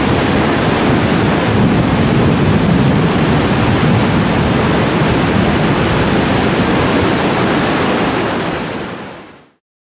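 Whitewater rushing steadily down an artificial slalom canoe channel, fading out near the end.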